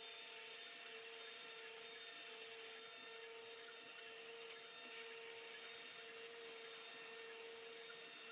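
CNC router spindle running steadily with a faint, even high whine over a hiss while it cuts round pieces out of hardboard.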